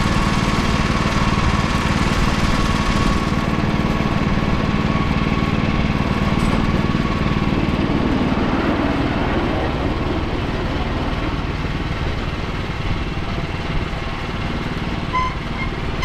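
Engine running steadily at a constant speed, with a faint high steady tone in the first few seconds.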